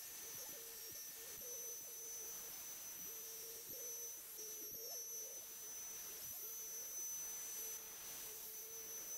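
The router spindle of a Shapeoko 3 XXL CNC machine running while its bit cuts across a pine board: a steady high whine over a lower hum that wavers slightly as the cut goes on.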